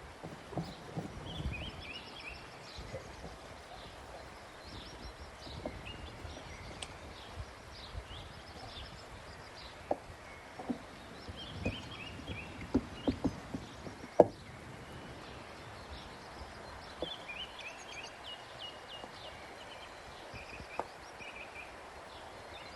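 Small birds chirping in short repeated phrases in the background, with scattered knocks and taps, a cluster of the loudest ones in the middle.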